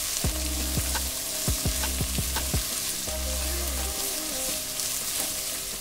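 Shredded cabbage, capsicum and carrots sizzling in hot oil in a non-stick wok while being stirred with a silicone spatula, a steady frying hiss.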